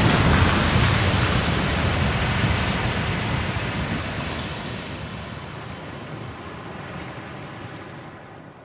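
The long noisy tail of an explosion sound effect, heavy in the bass with a hiss above, fading away steadily over about eight seconds.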